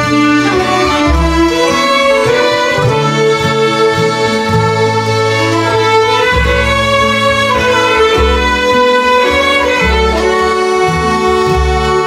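Traditional music ensemble of many fiddles, tin whistles and flutes playing a tune together over low accompanying chords.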